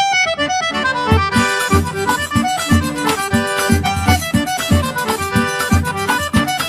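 Instrumental intro music with a quick, steady beat of about three strokes a second.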